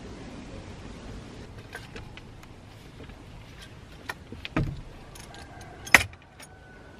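Wooden knocks and clicks from a tree house floor of lashed wooden poles as a man climbs up through its hatch, with a dull thump about four and a half seconds in and a sharp crack about a second later.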